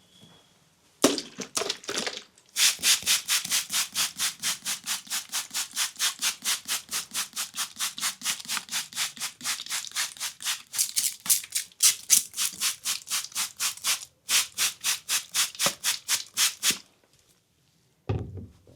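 Hands rubbing briskly back and forth over skin in a leg massage, a fast even rhythm of about five strokes a second. A few slower strokes come first, and the rubbing breaks off briefly about three-quarters of the way through, then stops near the end.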